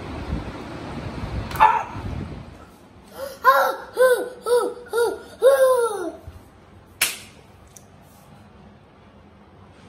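A child laughing in a run of about six high, rising-and-falling ha's, followed about a second later by a single sharp click.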